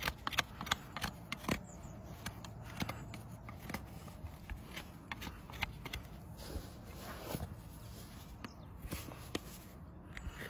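A farrier's hoof knife paring a horse's hoof sole: irregular short scraping and clicking cuts.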